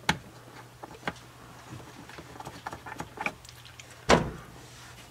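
Light clicks and taps of hand tools and parts being handled during repair work, with a louder knock about four seconds in, over a faint steady low hum.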